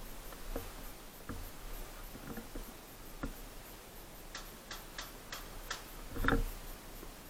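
A run of sharp clicks, about three a second, starting a little past the middle, followed by a louder thump near the end.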